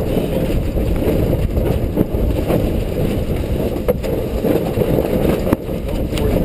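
Steady wind rumble buffeting the microphone aboard a sailboat, with a couple of sharp knocks.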